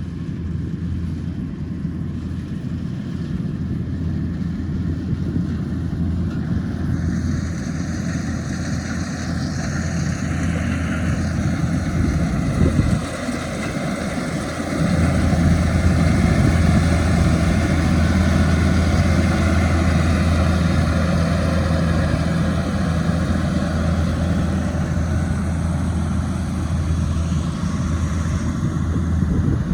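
Rice combine harvester running steadily with a deep engine hum. A higher mechanical whir joins about a quarter of the way in, and the machine drops briefly near the middle before running louder again.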